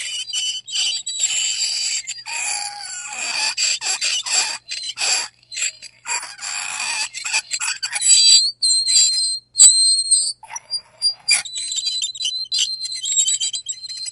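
Metal fork scraping across a ceramic plate in short, uneven strokes, with high-pitched squeals.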